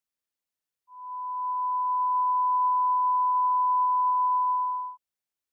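A steady electronic beep of a single pure pitch, like a test tone, swelling in about a second in, holding level for about four seconds, then cutting off abruptly.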